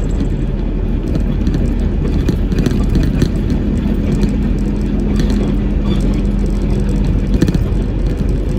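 Truck cab noise at expressway speed: a steady low engine and road drone, with a hum that holds one pitch through the middle and a few faint clicks.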